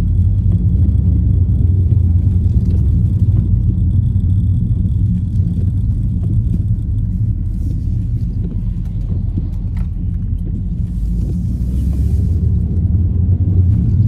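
Car driving on a wet road, a steady low rumble of engine and road noise heard from inside the cabin.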